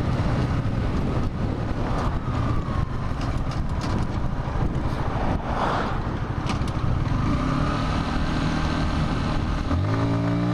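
Motorcycle being ridden: engine running under steady wind rush on the microphone, with the engine note rising as it accelerates near the end.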